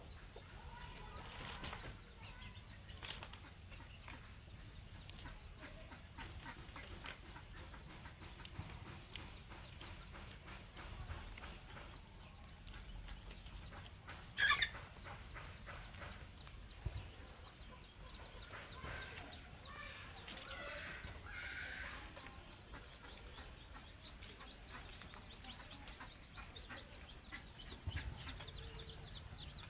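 Village chickens clucking, with one loud squawk about halfway through and a burst of clucking a few seconds later.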